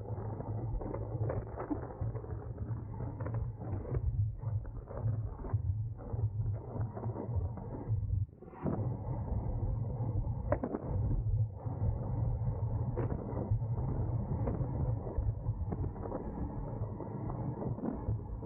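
Road racing bicycle ridden at speed: a steady muffled rumble of road and wind, with frequent creaks and clicks from the bike and the gear on it. The rumble drops out briefly about eight seconds in.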